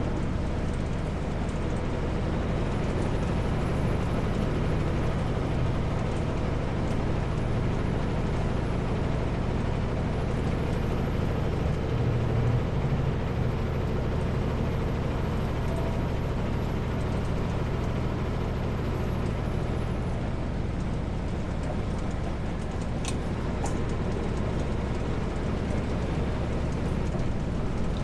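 Kenworth W900L semi truck cruising on a wet highway, heard from inside the cab: a steady diesel engine drone with tyre and road noise.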